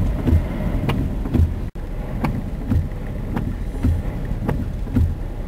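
Inside a moving car's cabin in a tropical-storm downpour: steady road and rain noise, with a regular knock about twice a second.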